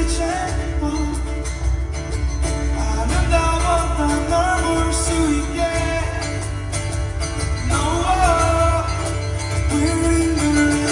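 Live band music playing the last bars of a song: a melody line over a steady bass.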